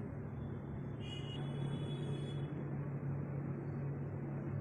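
Steady low hum and rumble of running machinery. A faint high tone sounds for about a second and a half, starting about a second in.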